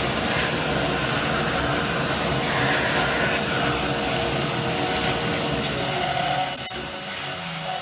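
Vacuum cleaner running, sucking up wood dust through its hose. About six seconds in it is switched off and its motor winds down, leaving the fainter steady whine of the CNC router's spindle cutting pine.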